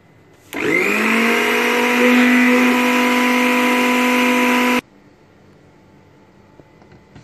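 Countertop electric blender motor spinning up quickly to a steady high whine, running for about four seconds while puréeing a chickpea mixture for hummus, then cutting off suddenly.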